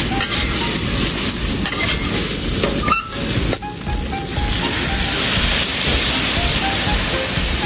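Background music over a steady loud sizzle of pork and green peppers stir-frying in a hot pan, with a brief break about three seconds in.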